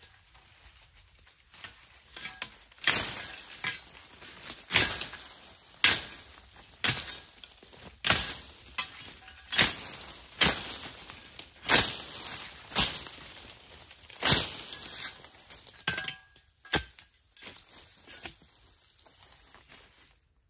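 Bamboo stems being chopped or snapped in undergrowth: a run of sharp cracking strokes, about one a second, thinning out near the end, with rustling of dry leaves and stems between them.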